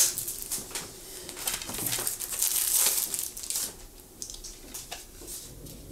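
Crinkling and rustling of album packaging being handled, busiest over the first three and a half seconds and fainter after.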